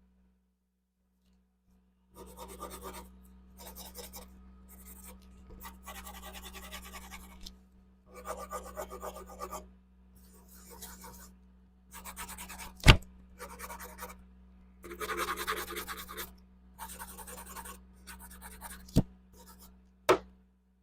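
Scraping and rubbing in short bursts of about a second each, broken by sharp knocks, the loudest near the middle and two more near the end.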